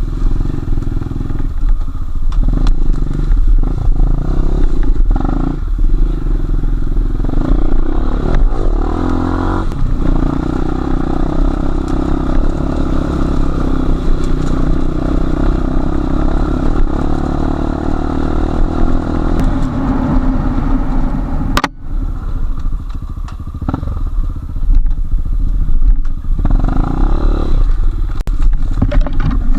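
Enduro motorcycle engine running on a trail ride, its note rising and falling with the throttle, with clatter and knocks from the bike over rough ground; the sound breaks off briefly about two-thirds of the way through.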